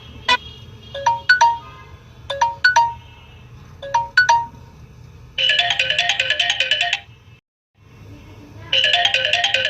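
Samsung Galaxy J7 Max ringtone playing: bright electronic notes in spaced pairs, then a fast busy run of notes. The sound cuts to dead silence for a moment about seven and a half seconds in, and the fast run of notes starts again near the end.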